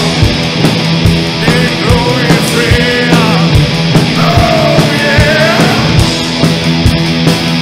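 Live recording of blackened horror punk played from cassette: distorted rock band with a steady drum beat and a wavering melody line over held low chords.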